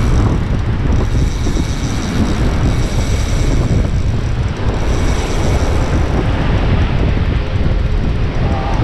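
Steady wind buffeting the microphone, loud and low, over the wash of surf.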